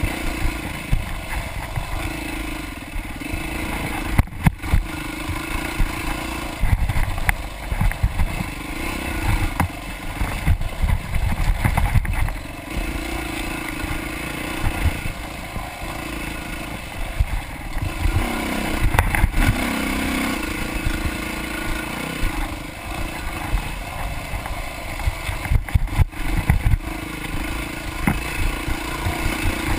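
Dirt bike engine revving and backing off again and again as it is ridden hard over rough ground, heard from on board the bike, with frequent short low thumps.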